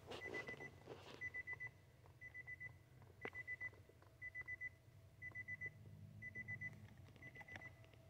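A car's electronic warning chime beeping faintly in quick groups of about four short beeps, repeating about once a second, with a couple of light clicks.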